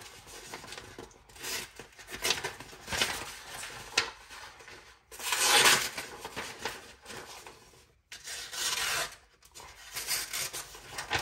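A folding knife blade slicing through a sheet of paper in a sharpness test, the paper rustling as it is handled. There are several short cuts, then two longer ones about five and eight seconds in.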